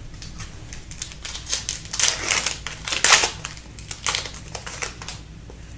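Trading cards and their packaging being handled by hand: a run of crisp clicks and rustles, with louder rustling bursts about two, three and four seconds in.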